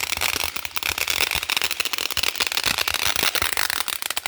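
Consumer fireworks going off in a fast, dense string of sharp pops and crackles.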